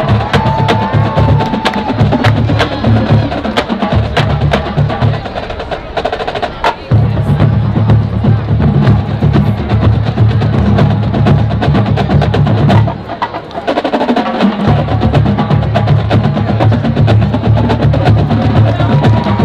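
Marching percussion playing: rapid snare-drum strokes and sharp stick clicks, over a low rumble that drops out twice.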